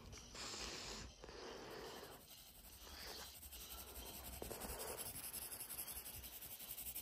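Graphite pencil drawing on paper: a few longer scratchy shading strokes, then quicker back-and-forth strokes, about five a second, from a little past halfway.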